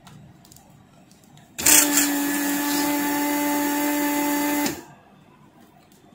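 Weller WR3M station's vacuum pump running while the DSX 80 desoldering iron's button is held to suck solder from a board joint: a steady hum with a hiss of drawn air, starting about a second and a half in and cutting off sharply about three seconds later.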